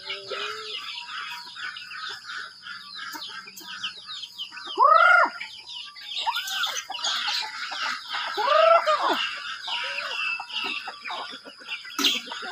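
A flock of young chickens peeping and cheeping busily while pecking at feed, with two louder short arched calls from a chicken about five and eight and a half seconds in.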